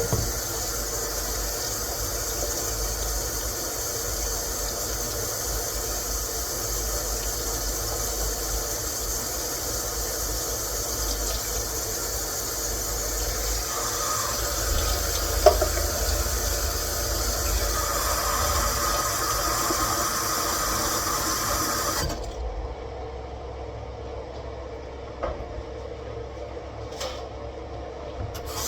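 Kitchen tap running steadily into a sink with dish soap for washing up. The water shuts off abruptly about three quarters of the way through, followed by a few light knocks.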